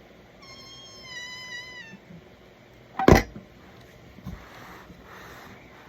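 A door swinging shut under an Arrow Series 300 door closer: a drawn-out squeal during the swing, then the door bangs shut hard, about three seconds in, because the closer is set to close fast at the end.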